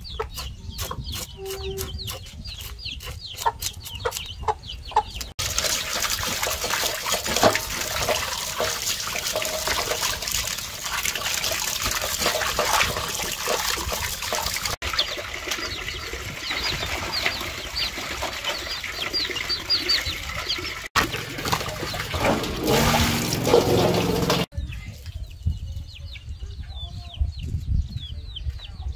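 Chicks peeping in short, high, falling chirps while a knife scrapes scales off a fish in quick strokes. For most of the middle, water pours steadily as the fish is rinsed, and the chicks' peeping comes through again near the end.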